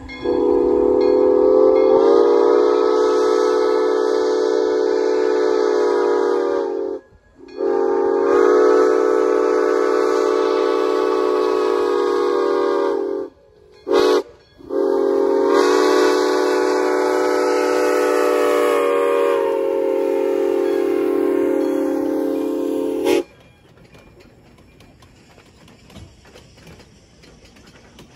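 Steam whistle of ATSF 3415, the Santa Fe 4-6-2 Pacific steam locomotive, sounding the grade-crossing signal: two long blasts, one short and a final long one, with steam hiss over the tone. Each blast rises a little in pitch as the whistle opens.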